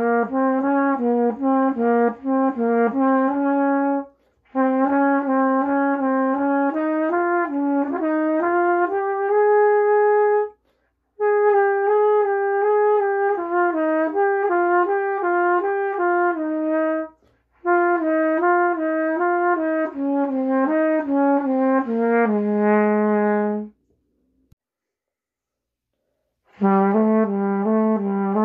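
Trumpet played solo: melodic phrases of moving notes, broken by short gaps, with a silence of about three seconds near the end before playing resumes.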